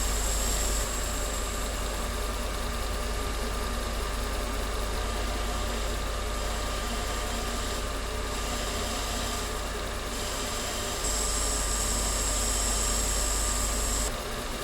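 A small machine tool's motor running steadily, with a steady whine. Its sound steps down about a second in, rises again about eleven seconds in, and drops near the end.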